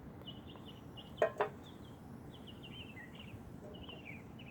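Small birds chirping repeatedly and steadily, short high twittering calls over outdoor ambience. Two short sharp knocks about a second in are the loudest sounds.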